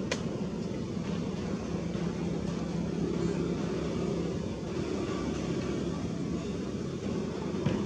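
A steady low engine drone that holds level throughout, with a sharp click at the very start and another just before the end.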